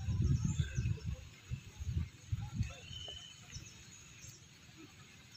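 Irregular low rumbling buffets on the microphone for the first two to three seconds, then fainter, with small birds chirping in the background.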